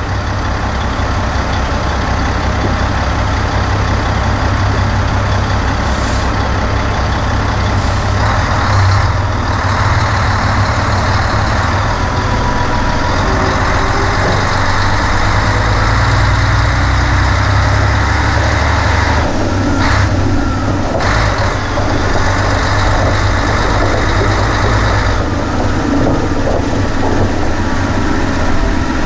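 Nissan Diesel KG48U truck crane's 12.5-litre PF6TB turbocharged diesel engine running steadily as the crane drives slowly, heard from the outside of the truck. The engine note shifts a little a few times, with a brief change about two-thirds of the way through.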